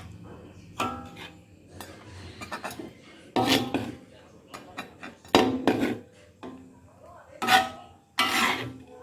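Metal spatula scraping and knocking against a metal wok full of fish in sauce: about five sharp strokes, some ringing briefly, the loudest in the second half.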